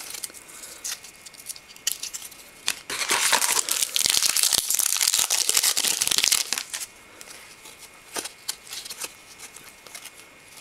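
Shiny foil wrapper of a hockey card pack being torn open and crinkled, a dense crackling rustle that is loudest for about three and a half seconds in the middle and stops suddenly.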